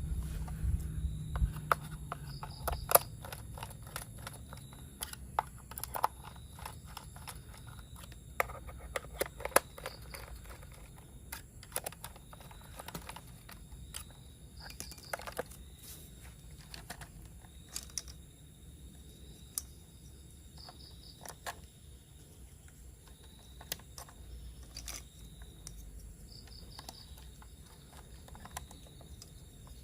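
Irregular sharp clicks and clacks of plastic toy train parts being handled and fitted together, a few of them louder snaps, over a faint steady high whine.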